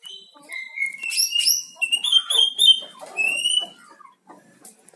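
Cucak ijo (green leafbird) singing: clear whistled notes and quick chirps, with a run of fast repeated notes in the middle and a longer whistle near the end.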